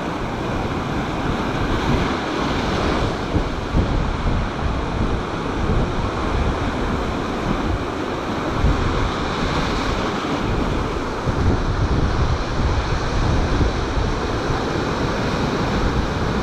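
Storm-driven sea waves breaking and washing on the shore, a continuous surf roar, with strong wind buffeting the microphone.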